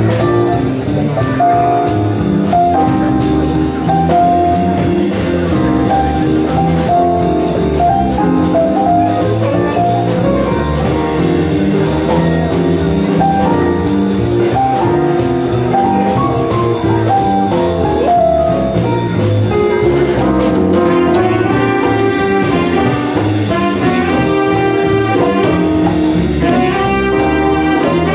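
Big band jazz played live: saxophone and brass sections playing together over a drum kit keeping time on the cymbals. The brass gets brighter about two-thirds of the way through.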